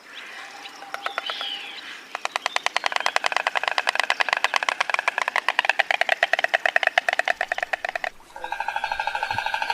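Stork clattering its bill: a fast, even rattle of clacks, about a dozen a second, building up over the first two seconds and cutting off suddenly about eight seconds in.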